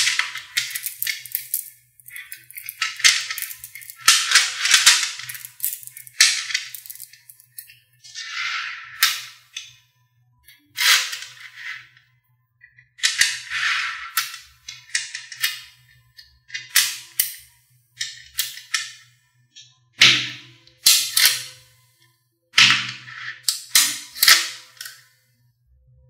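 Small neodymium magnetic balls clicking and clattering as they snap onto each other and are pressed into rows and a cube by hand. The clicks come in quick bursts separated by short pauses.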